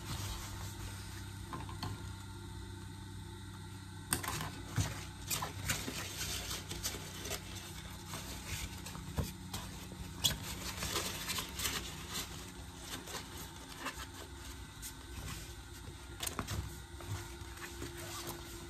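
Rustling and crinkling of rain-cape fabric as hands turn and smooth the garment at the sewing table, starting about four seconds in and going on in irregular bursts, over a faint steady hum.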